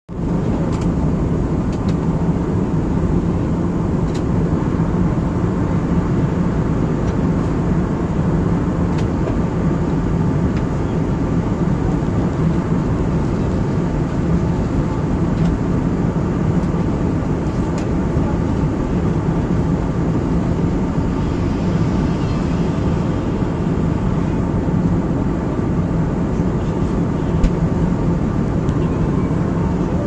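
Cabin noise of an Airbus A320-family jet airliner in cruise, heard from inside the cabin: a steady rush of airflow and engine noise over a constant low hum.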